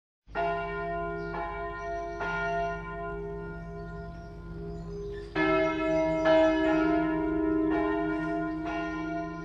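Church bells ringing, a new stroke about every second, each left to ring on; the ringing grows louder about halfway through.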